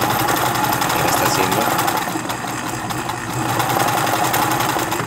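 Janome household sewing machine running at a steady sewing speed, needle and feed clattering rapidly as it stitches a pattern stitch. It stops abruptly near the end.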